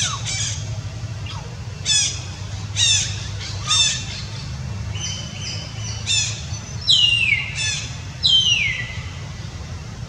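A series of about ten high-pitched squawking calls, several sliding down in pitch, with two longer falling calls near the end, over a steady low rumble.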